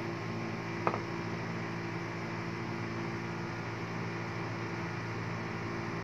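Steady low electrical hum, with one short click about a second in.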